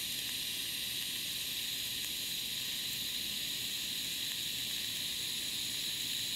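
TIG welding arc burning steadily on mill-scaled cold-rolled steel as ER70S-6 filler rod is fed into the puddle: an even, high-pitched hiss that holds at one level.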